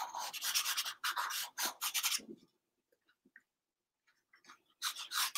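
Pencil scratching on sketchbook paper in quick repeated strokes for about two seconds, a pause, then another run of strokes near the end.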